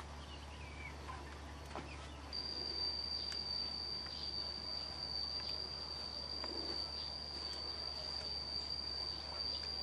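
An insect's steady, high-pitched buzzing that starts about two seconds in and holds one unbroken pitch.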